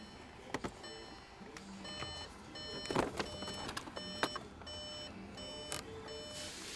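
Plastic interior trim being pried loose by hand: scattered clicks and knocks, the loudest about three seconds in, over faint repeating tones.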